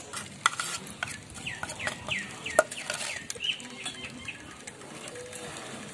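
A metal spoon clicking and scraping against a plastic bowl and plate as powdered spices are scooped across. A bird chirps a run of short, falling notes in the middle.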